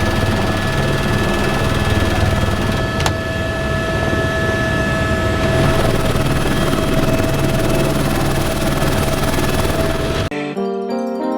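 Helicopter in flight, heard from inside the cabin: a loud, steady rotor and engine noise with a constant whine. It cuts off abruptly about ten seconds in, and piano music takes over.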